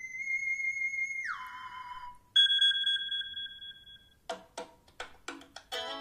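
iPhone ringtone previews played one after another. First a steady electronic tone that slides down in pitch, then a bright chime that fades out, then a few short struck notes, and near the end a busier multi-note ringtone begins.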